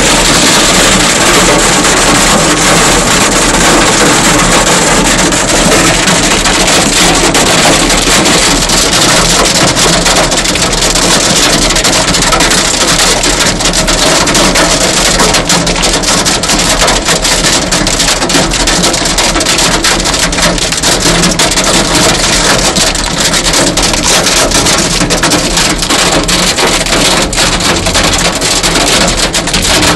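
Hailstones pelting a car's roof and windscreen, heard from inside the car: a loud, dense, steady clatter of countless small hits.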